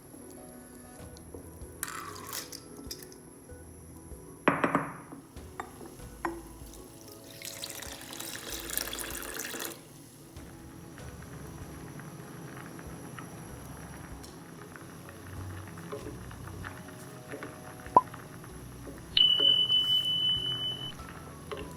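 Soft background music over kitchen sounds: water poured or running for about two seconds, a few knocks and a sharp click of utensils, and near the end a high steady tone lasting about two seconds.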